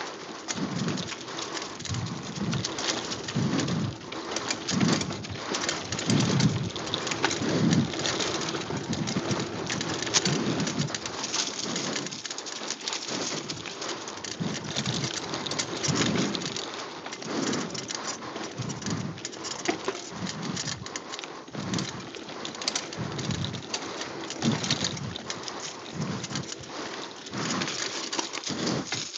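Mountain bike riding fast down a dirt singletrack: the tyres hiss over dirt and fallen leaves, with irregular low thumps from bumps and wind buffeting the microphone.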